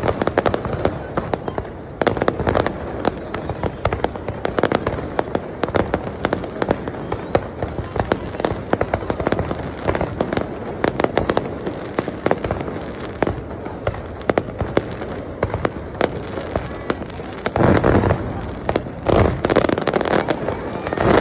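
Aerial fireworks going off in a dense, continuous barrage of crackling pops and bangs, with a few heavier, louder bursts near the end.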